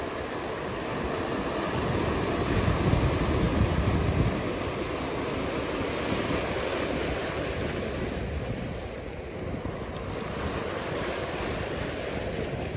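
Ocean surf washing steadily, with low wind rumble on the microphone that is strongest in the first few seconds.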